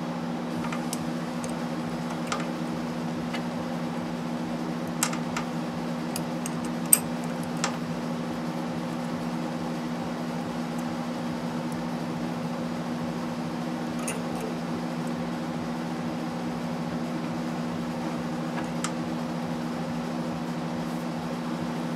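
Steady mechanical hum in a small workshop, with a few scattered sharp clicks and taps from tools and brake-line fittings being handled. The loudest click comes about seven seconds in.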